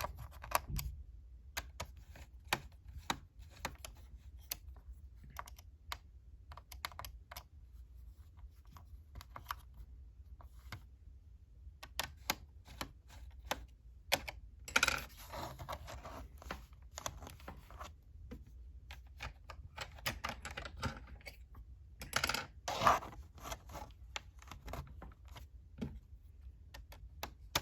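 Small screwdriver unscrewing the screws of a laptop's bottom RAM cover: a run of irregular light clicks and ticks, with short scraping rustles about halfway through and again later.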